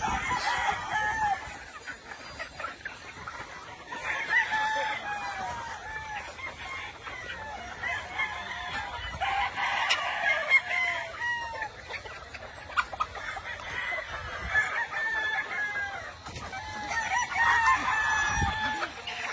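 Gamefowl roosters crowing, a crow every few seconds, with chickens clucking in between.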